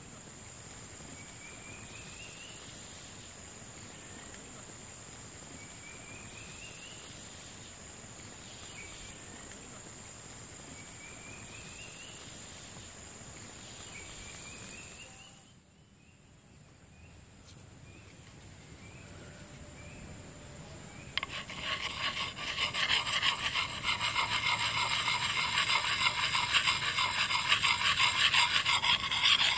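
A steady high insect drone, with a bird's short rising call repeating every two to three seconds. About two-thirds through, a much louder, fast, rhythmic scraping starts: a knife scraping bark off a green wooden stick.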